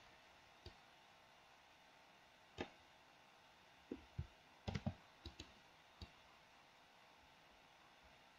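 Faint, scattered clicks of a computer mouse and keyboard in near silence, about ten in all, bunched together in the middle.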